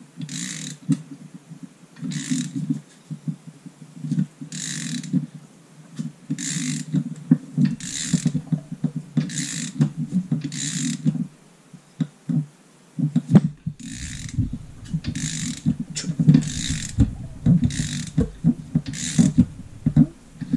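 Socket ratchet on the crankshaft nut turning a Suzuki GN250's single-cylinder four-stroke engine over by hand, clicking in about a dozen short runs, one every second or two, as the handle swings back. Under the clicks, the engine's gears and valve train clatter as it is cranked against compression to check the freshly assembled head.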